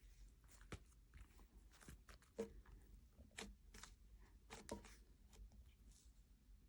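Faint, scattered sticky clicks and crackles of hands squishing and kneading butter slime made from Model Magic clay and lotion.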